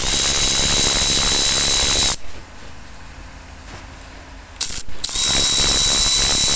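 Milwaukee M12 cordless 3/8-inch ratchet running with a steady high whine, backing out T25 Torx screws from a plastic airbox lid. One run of about two seconds, a brief blip, then another run starting about five seconds in.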